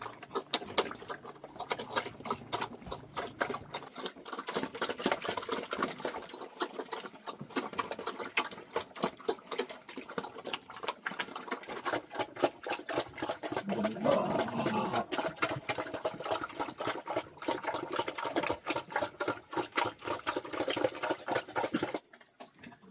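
Animals feeding, with rapid, irregular crunching and clicking of chewing. A short pitched animal sound comes about fourteen seconds in, and the chewing stops abruptly about a second before the end.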